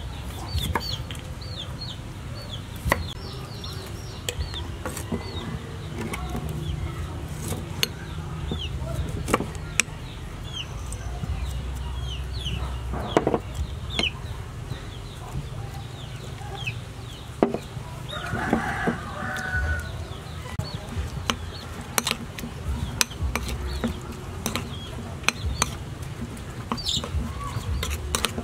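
Chickens clucking and peeping in short repeated calls, with scattered sharp clicks and taps of a knife on a wooden chopping block and of a metal spoon against a ceramic bowl.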